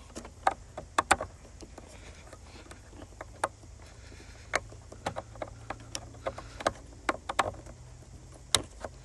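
Irregular sharp plastic clicks and knocks as wiring-harness connectors are handled and pushed into a car's replacement fuse box, over a faint steady low hum.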